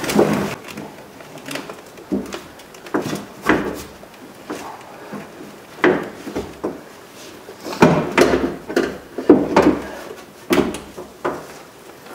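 Manual window regulator knocking and scraping against the inside of a 1996 Ford F-150's steel door shell as it is shifted and rotated into place by hand: irregular metallic clunks and rattles, busiest in the second half.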